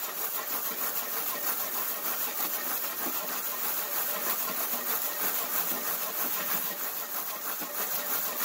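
Dozens of moly-coated, copper-jacketed hollow-point bullets rattling and clattering together without a break as a paper-towel-lined baking pan is shaken back and forth. The slamming knocks the water out of the hollow-point tips as the bullets dry.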